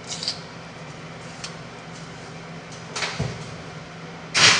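Oven door opened with a thump about three seconds in, then a metal muffin tin slid onto the oven rack with a short, loud scraping rattle near the end, over a steady low hum.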